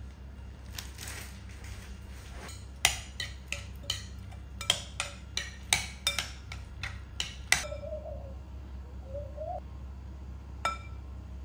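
Hard kitchenware clinking: a quick run of about fifteen sharp clinks, each with a short ring, over some five seconds, then one more clink near the end, over a low steady hum.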